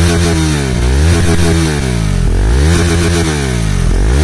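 KTM Duke 390's single-cylinder engine revved through an Akrapovič exhaust, the pitch rising and falling about three times. There is no crackle or popping as the revs drop.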